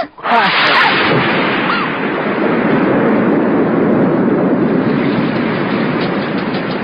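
Thunderstorm: a sudden loud crash of thunder just after the start, then a steady rush of heavy rain.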